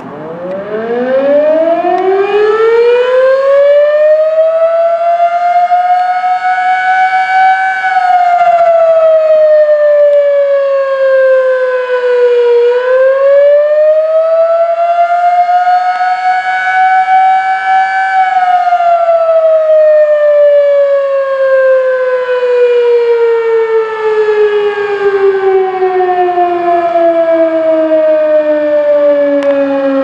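Sterling M-10 electromechanical outdoor warning siren sounding a short attack signal. It winds up to full pitch over the first several seconds, sags to a dip about twelve seconds in, and winds up again. It then coasts down in a long, slowly falling wail.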